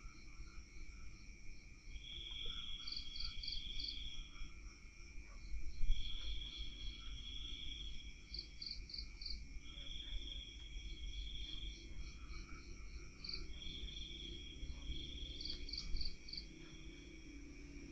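Night insects, crickets, chirping: one gives a trill of about a second and a half roughly every two seconds, another quick pulses in groups of about four, over a steady high-pitched drone. A low rumble of background noise underneath swells twice.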